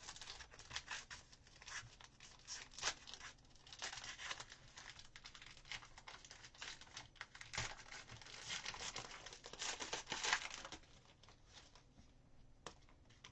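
A trading-card pack wrapper being torn open and crinkled by hand, in irregular rustling, crackling bursts that thin out over the last couple of seconds.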